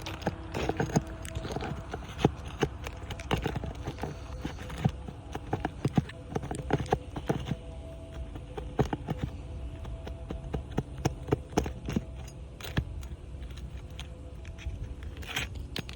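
Irregular clicks, taps and knocks of hand-tool work on old asphalt shingles: seal strips being broken, shingles lifted and nails pried out.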